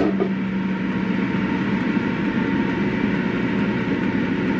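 Philips airfryer running, its fan giving a steady whir with a faint hum.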